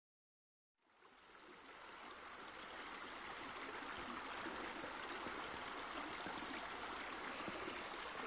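Steady running, splashing water ambience, like a stream or a pool spillover, fading in from dead silence about a second in and then holding steady.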